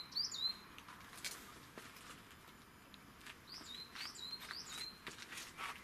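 A small bird chirping: two short high notes at the start, then a run of four like them about three and a half seconds in. A few faint clicks are heard over a quiet background.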